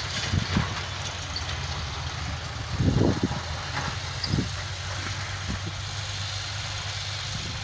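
John Deere tractor's diesel engine running steadily while it pulls a rotavator through the soil, with a few brief low thumps, the loudest about three seconds in.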